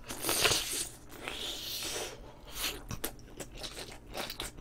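Close-mic'd eating: a big mouthful of spicy braised chicken stew (dakbokkeumtang) topped with kimchi being bitten and chewed. There is a noisy stretch in the first second, then wet chewing with a string of short clicks.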